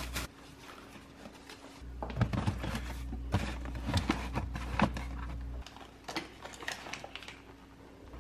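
Groceries being packed into a fridge: plastic bags rustling and rigid plastic meat trays clicking and knocking against each other and the shelves, a series of short irregular knocks.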